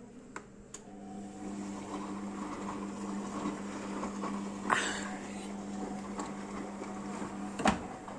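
Washing machine running with a steady hum over a rushing noise, with a sharp knock about halfway and a louder knock near the end as the hum stops.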